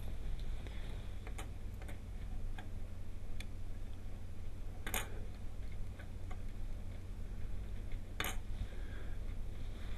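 Light clicks and taps from a soldering iron and solder wire being worked on a small circuit board, two sharper clicks about five and eight seconds in, over a steady low hum.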